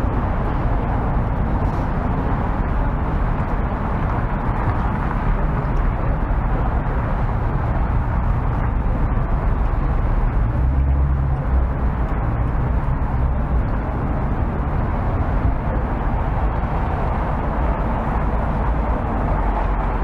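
Steady city street noise, with a continuous low rumble of traffic.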